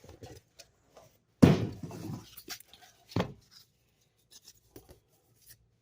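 Cardboard shipping box and its contents being handled: scattered light rustles and taps, with a louder thump about one and a half seconds in and a smaller one near three seconds.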